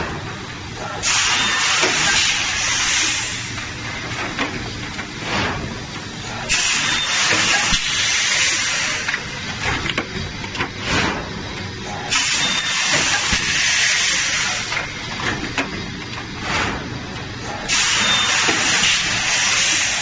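Automatic servo-driven plastic thermoforming machine cycling. It gives a loud hiss of air about every five and a half seconds, four in all, each lasting about three seconds, over a steady low machine hum with occasional knocks from the press between the hisses.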